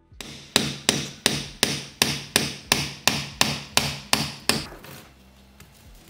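A hammer tapping a screwdriver to drive the metal spacers out from between the windings of a microwave oven transformer: about a dozen sharp, evenly spaced blows, about three a second, each with a short ring, stopping about four and a half seconds in.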